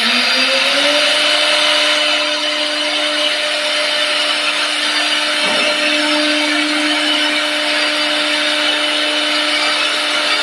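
CNC wood lathe running: the spindle motor's whine rises in pitch during the first second, then holds steady over a continuous hiss typical of a cutter turning a wooden leg.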